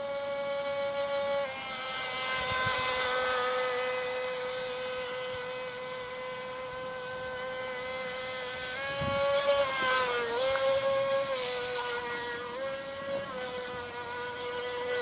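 DEERC radio-controlled speedboat's electric motor whining steadily, over a hiss of water spray. Its pitch drops slightly early on, then rises and dips a few times as the throttle changes, loudest about two-thirds of the way through.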